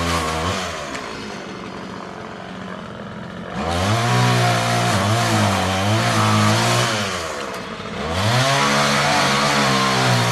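Chainsaw revving hard in two long bursts of about four seconds each, its pitch wavering and sagging under load. It drops back to a lower running note for a few seconds early on and dips briefly in between.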